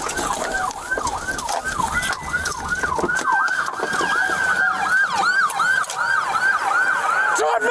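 Police vehicle sirens sounding in a fast yelp, several sirens overlapping, each sweeping up and down about three times a second.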